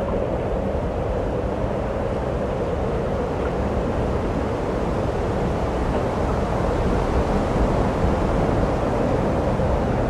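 Steady wind noise on the microphone outdoors, a low rumbling hiss that holds without a break and grows slightly louder in the last few seconds.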